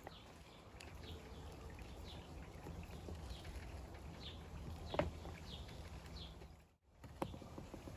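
Faint bird calls: short descending chirps, roughly one a second, over a low steady background hum, with a sharp click about five seconds in and another just after a brief break near the end.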